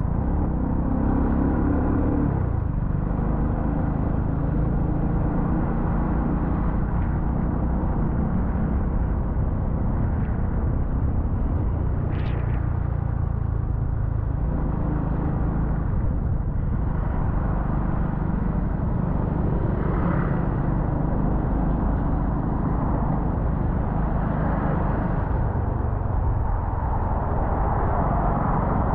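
A car's engine and road noise: a steady low rumble as the car drives along.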